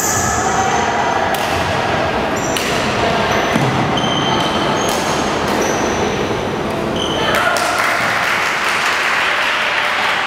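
Badminton doubles rally on a wooden gym floor: sharp racket hits on the shuttlecock and short squeaks of court shoes, over the chatter of spectators in a large, echoing hall. About seven seconds in, the rally ends and the crowd noise swells.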